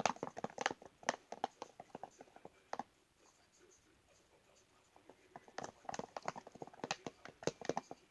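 Slime being stirred in a bowl: a utensil clicking and tapping against the bowl in quick, irregular runs, with a pause of a couple of seconds mid-way.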